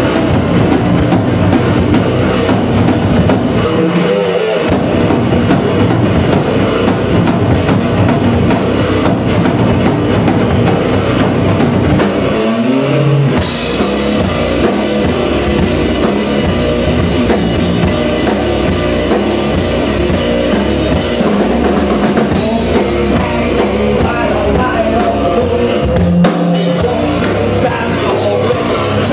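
Rock band playing live and loud, drum kit and electric guitar driving a steady rock song. The low end drops out briefly three times: about four seconds in, around twelve seconds, and near the end.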